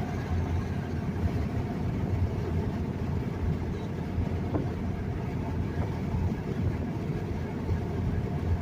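Steady road and engine noise inside the cabin of a pickup truck driving at highway speed: a low, even rumble.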